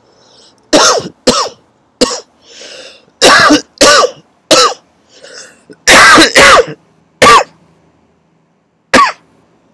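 A man coughing hard in a fit of about ten loud coughs in clusters, with breaths drawn in between them; the last cough comes near the end after a short pause.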